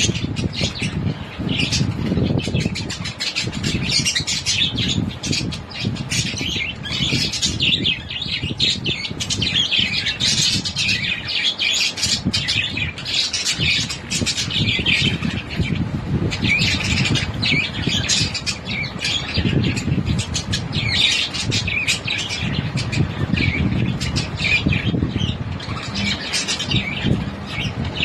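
Parrots chirping and squawking, many short calls overlapping without a break, over a low background rumble.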